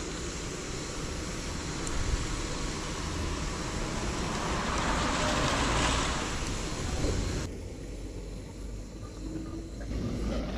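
A light truck passing on the road close by, swelling to its loudest about six seconds in, over the steady hiss of a canister camping gas stove. The noise drops away abruptly about seven and a half seconds in.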